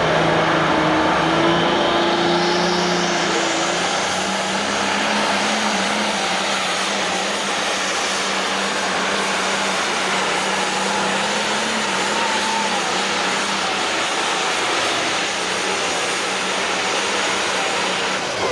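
Turbocharged diesel engine of an International 1066 super stock pulling tractor at full throttle, running loud and steady as it drags the weight-transfer sled down the track.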